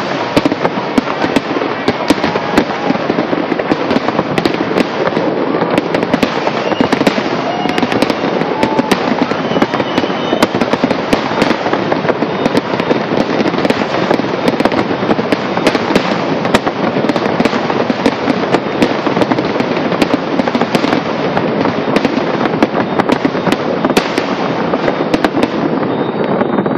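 Large fireworks display going off in a continuous rapid barrage: dense crackling packed with many sharp bangs, the closing stretch of the show.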